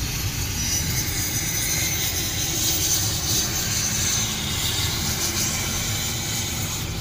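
Road and engine noise inside a car's cabin as it drives slowly along: a steady low rumble with a hiss above it.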